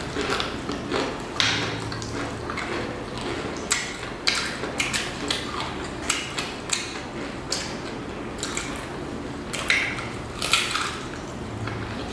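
Close-up eating sounds from people working through a KFC fried-chicken meal: irregular wet smacks, crunches and clicks of chewing and handling the food.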